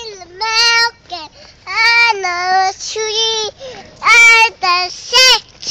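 A toddler girl singing in a high voice: a string of short, held sung notes broken by brief pauses.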